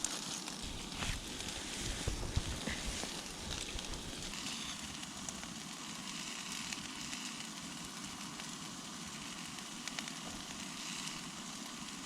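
Broccoli and pepper sizzling steadily as they fry, with a few clicks and knocks in the first couple of seconds.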